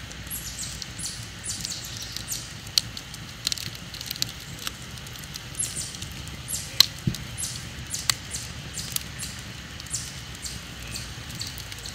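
Wood campfire crackling, with irregular sharp pops; the loudest pop comes about seven seconds in.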